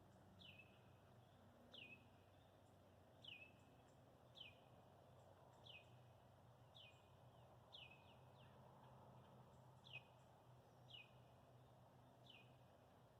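A bird calling faintly, repeating a short high note that slides down in pitch about once every second, over a faint steady low hum.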